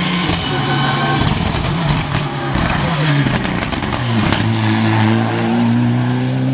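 Rally car engine at high revs. The revs drop in the first half, with a cluster of sharp cracks around the middle, then climb steadily under acceleration.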